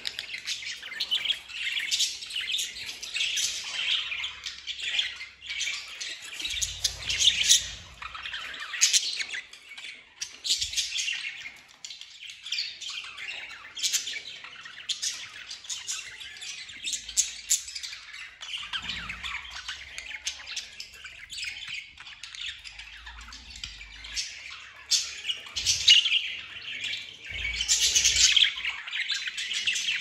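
A flock of budgerigars chattering and warbling, with many overlapping chirps and squawks and no break.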